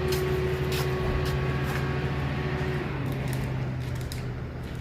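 A steady low mechanical hum with a higher steady tone that stops about three seconds in, and a few light clicks and knocks scattered throughout.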